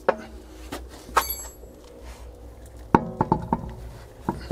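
Metallic knocks and clinks as a car's alloy wheel is fitted back onto the hub: one knock at the start, another about a second in with a brief metallic ring, and a quick cluster of clinks around three seconds in.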